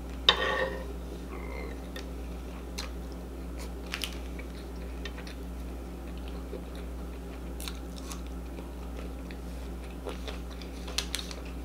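Close-miked eating: chewing and biting food, with scattered small clicks and crunches, over a steady low electrical hum. A brief louder sound comes about half a second in.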